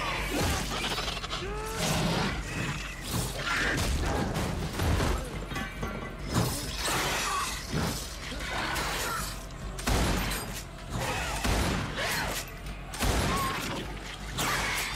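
Monster-attack sound effects from a fleshy tentacled creature: a string of crashes, thuds and breaking debris, with dramatic music underneath.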